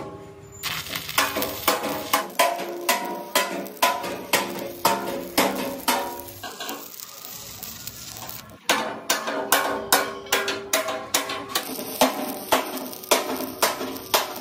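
Repeated hammer blows on steel, about two to three a second, each one ringing; they break off for about two seconds near the middle and then resume.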